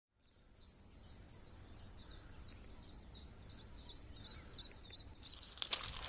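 A small songbird repeating short, high, falling chirps a few times a second, the series quickening, over a faint low outdoor hum. Near the end a rustling hiss and a few sharp clicks begin.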